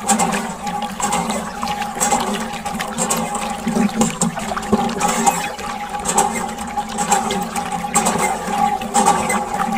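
Thin stream of water from a small hose splashing steadily onto toy cars and sand, over a steady hum.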